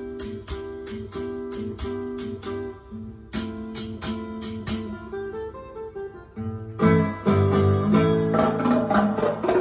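Guitar and percussion record playing on a turntable hi-fi through loudspeakers: a run of sharply plucked guitar notes that turns louder and fuller, with low notes added, about seven seconds in.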